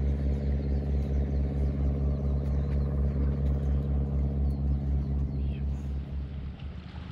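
Ferry boat's engine running with a steady low drone and a regular throb, fading out about six and a half seconds in.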